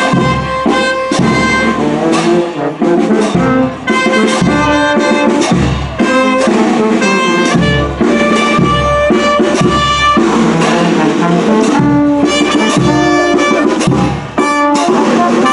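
Brass band music: trumpets and other brass playing a melody together at a steady pace.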